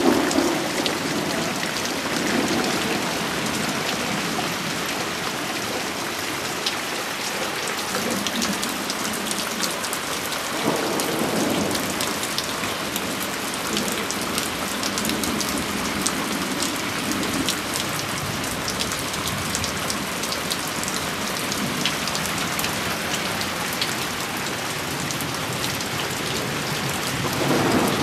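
Rain falling steadily and splashing onto wooden boards and grass, with sharp clicks of close drops hitting near the microphone. Low rumbles of thunder swell a few times, the clearest about ten seconds in and near the end.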